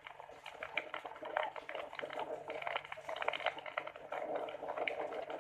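Water splashing and gurgling in quick, irregular spatters and clicks.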